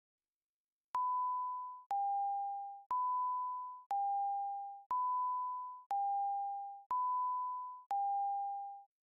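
Countdown-clock beeps on a TV news tape leader: eight pure tones, one a second, alternating between a higher and a slightly lower pitch, each starting sharply and fading away, marking the seconds down to the start of the programme.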